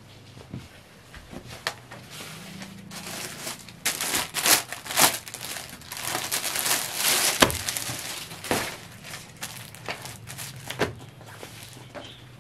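Clear plastic packaging of a suit set crinkling and rustling as it is handled and opened, loudest for a few seconds in the middle, with softer cloth rustles before and after.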